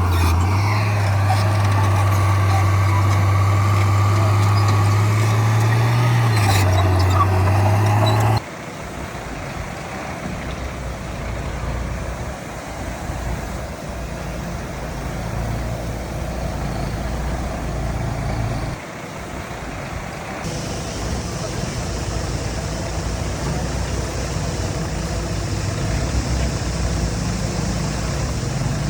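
Diesel engines of heavy earthmoving machines running: loud and close with a steady low hum for about the first eight seconds, then cut off suddenly to a quieter, more distant engine rumble.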